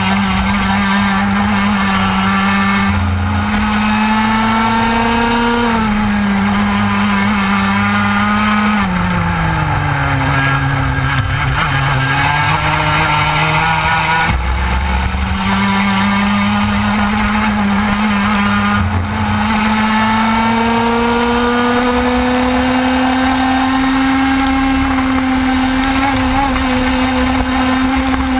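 TKM Extreme racing kart's two-stroke engine running at race speed, heard from the kart itself. Its pitch climbs slowly along the straights, drops twice as the kart slows for corners in the first half, then rises steadily through the second half.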